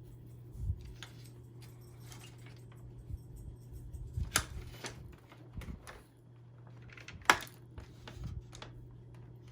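Plastic vacuum cleaner parts and screws being handled and fitted together: scattered light clicks and knocks, with two sharper clacks about four and seven seconds in, over a low steady hum.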